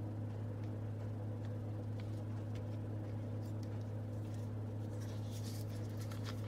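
Slime being handled, giving faint scattered clicks and small crackles that grow busier about five seconds in. Under it runs a steady low electrical hum.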